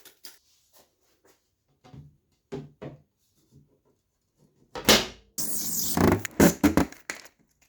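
Scattered light knocks and taps of handling, then a loud thump about five seconds in followed by a couple of seconds of scraping and rustling of packaging with several knocks.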